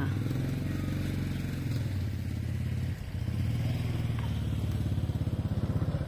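Motorcycle engine idling steadily at low revs, dipping briefly about halfway through.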